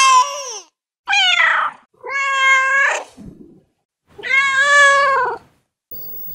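Domestic cat meowing: four drawn-out meows with short gaps between, the second sliding down in pitch and the last one the longest.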